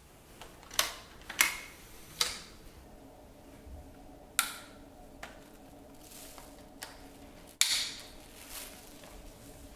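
Sharp, irregular plastic clicks and clacks of Dyson Small Ball upright vacuum attachments and wand parts being handled and clipped into place, with the vacuum motor off; the five loudest come one to three seconds apart.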